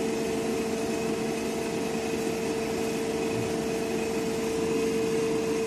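Salient-pole three-phase synchronous motor running steadily, coupled to its DC shunt starting motor: a constant hum with one clear steady tone on top.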